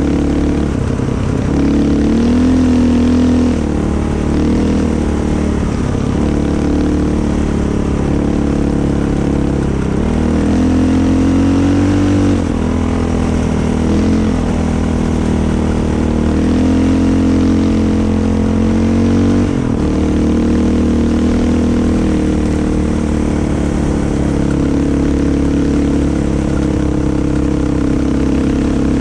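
Off-road vehicle engine running under load on a trail, its pitch rising and falling as the throttle is opened and eased off every few seconds.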